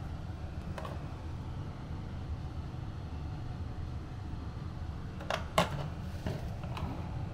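Plastic toiletry bottles clacking as they are picked up from and set back into a sink-side amenity tray. The loudest knock comes about five and a half seconds in, as a bottle goes back into its holder. A steady low hum runs underneath.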